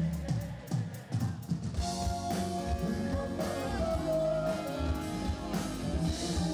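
Live pop-rock band playing: drum kit with a steady beat, electric guitar and saxophone, with a male singer's voice over them.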